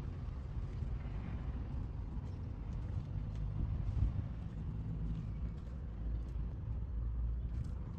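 Truck engine running at a steady idle, a low rumble with a few faint clicks over it.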